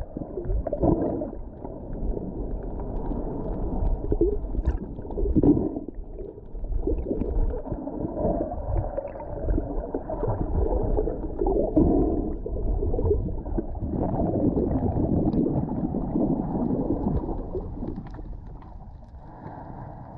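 Muffled water sloshing and gurgling heard underwater through an action camera's waterproof housing, swelling and fading every few seconds.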